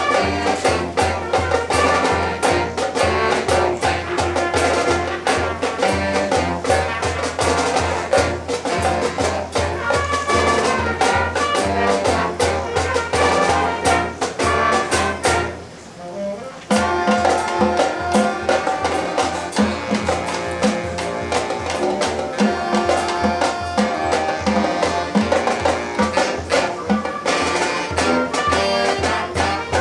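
High school marching band playing, brass and drums over a steady beat. About halfway through, the band drops away for about a second and then comes back in.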